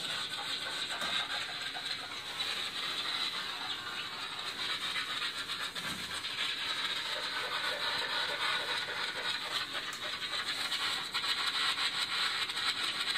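Electrosmog (RF) detector's speaker turning a Hydro-Québec smart meter's radio data transmissions into a steady, dense crackling hiss with a fast pulsing running through it.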